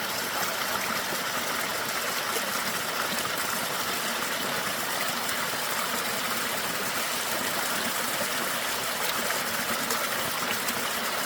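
Mountain stream rushing over rocks in a steady, even hiss of running water.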